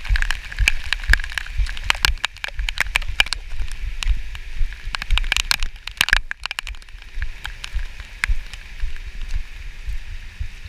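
Rain falling, with many irregular drops tapping close to the microphone over a steady hiss.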